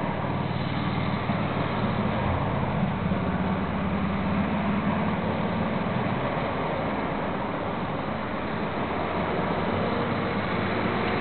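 Road traffic: cars driving past one after another close by, a steady mix of engine and tyre noise over a low hum.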